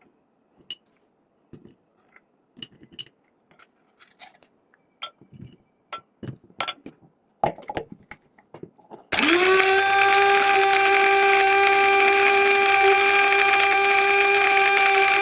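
A few light, scattered clicks and knocks, then, about nine seconds in, a 500-watt electric spice grinder starts abruptly and runs at a steady speed with a high whine, grinding dried turmeric.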